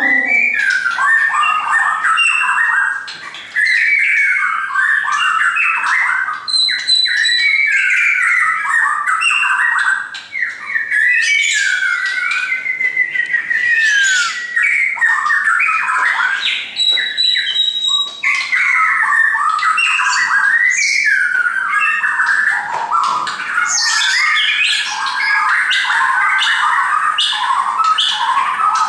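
Shama singing continuously: a rich, varied stream of whistled phrases and fast trills, broken by short sharp notes.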